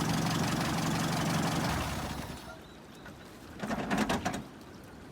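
UAZ engine idling steadily, dying away about two and a half seconds in, followed by a brief muffled noise about a second later.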